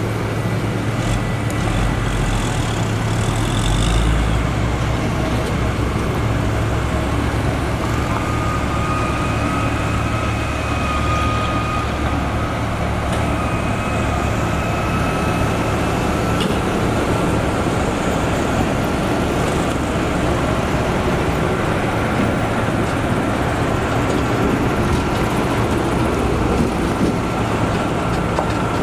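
Diesel engines of single-drum road rollers and a motor grader running steadily on a dirt road bed, mixed with passing road traffic. A steady high whine joins about eight seconds in.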